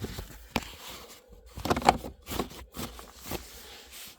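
Hands working the plastic gear knob and gaiter on a car's gear lever: a run of short clicks and knocks with light rustling and scraping between them, loudest about two seconds in.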